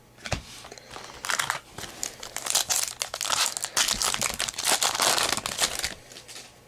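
Plastic trading-card pack wrapper crinkling as a 2009 Upper Deck Heroes football pack is opened, with dense crackling in irregular spurts for most of the stretch.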